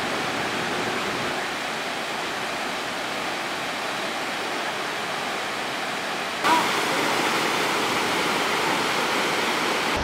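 Waterfall tumbling down a rock face: a steady rush of falling water, a little louder after a brief sound about six and a half seconds in.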